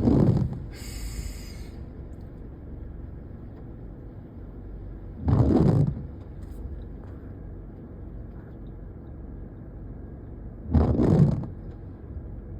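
Steady low road noise of a moving car, broken three times, about five seconds apart, by a short loud thump or whoosh.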